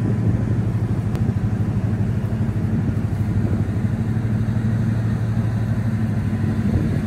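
Raimann ProfiRip KR 310M single-shaft multi-rip saw running, its 55 kW main motor and blade shaft giving a steady low hum with a fast flutter.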